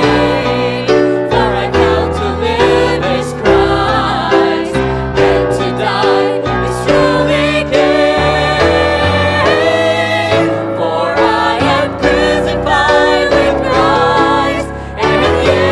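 Mixed vocal quartet, women's and a man's voices, singing a gospel song in harmony with sustained, wavering held notes, over instrumental accompaniment with steady low bass notes.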